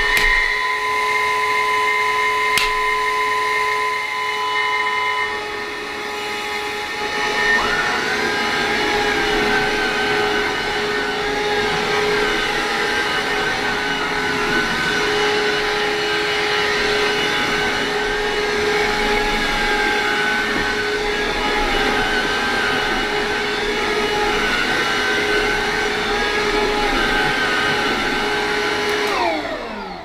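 Bissell Powerglide Cordless upright vacuum cleaner running on carpet: a loud, steady motor whine. From about eight seconds in, part of the whine wavers up and down. Near the end it winds down, the whine falling away.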